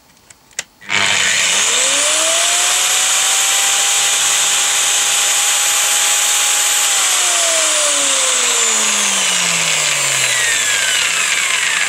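A 2.2 kW angle grinder is switched on about a second in and whines up to full speed. It runs steadily with a mechanical tachometer pressed to its spindle to read its speed. About seven seconds in it is switched off and spins down with a steadily falling whine.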